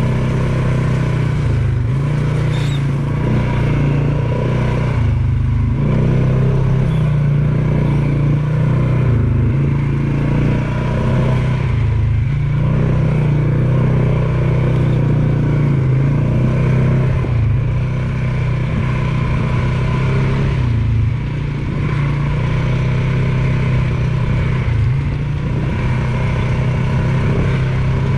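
ATV engine running under way at a steady pace, dipping briefly now and then as the throttle eases and picks up again.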